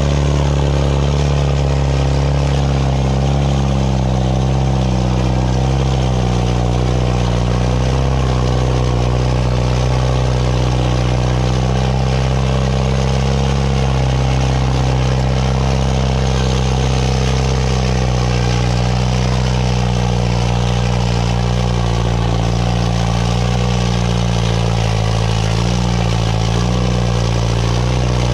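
Farmtrac 6055 tractor's diesel engine running at a steady, unchanging pitch under heavy load as it pulls a weighted drag along a dirt track.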